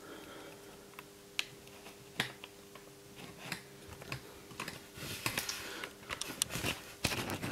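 Light clicks and taps from items being handled on a table, such as a plastic dessert tray and packaging. A few single clicks come first, then a busier run of small clicks and rustling over the last two and a half seconds.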